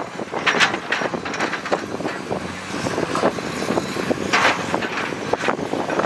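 Heavy construction machinery working: a diesel engine running under a dense, irregular clatter of knocks and rattles.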